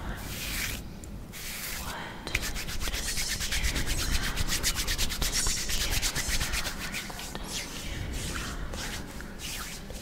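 Hands rubbing and scratching bare skin close to the microphone. Slower sweeping strokes come first, then from about two seconds in a fast, even run of scratching strokes.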